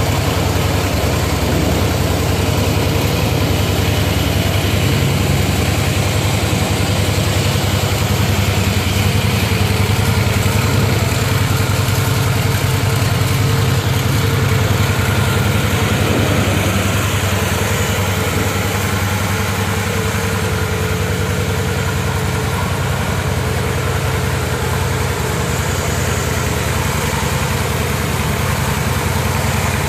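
2015 Harley-Davidson Softail Deluxe's air-cooled Twin Cam 103 V-twin engine idling steadily in neutral.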